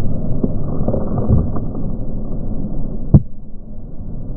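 Snowmobile running at speed with steady rumbling engine and wind noise, broken by a sharp, very short knock about three seconds in.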